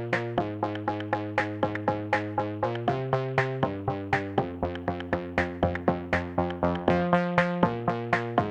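Electronic background music: held synthesizer chords that change every second or so over a steady quick beat.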